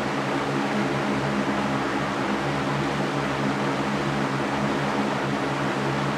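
Electric fan running steadily: an even rush of air with a low, steady hum underneath.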